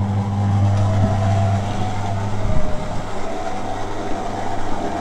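Electric stand mixer running, its flat beater churning dry bath bomb powder in a stainless steel bowl: a steady motor hum with a wavering whine above it.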